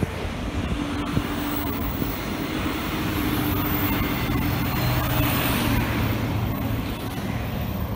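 Steady freeway traffic with a Transperth B-series electric train running past on the line alongside. A truck goes by in the second half, adding a low engine hum.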